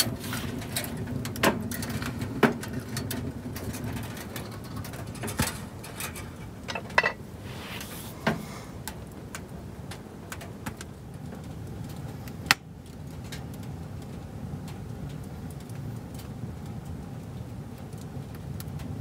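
Small wood-burning tent stove with a fire going: a low steady background with scattered sharp crackles, pops and light metal knocks, as the stove door is handled and shut within the first few seconds.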